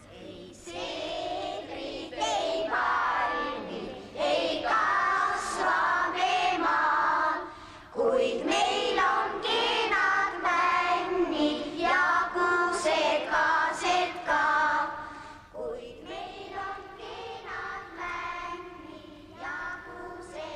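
Children singing a song, in phrases of held notes.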